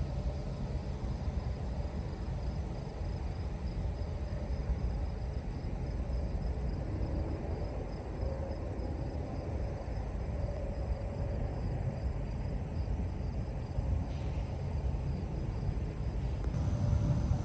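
Crickets chirping faintly in an even, pulsing rhythm over a steady low rumble.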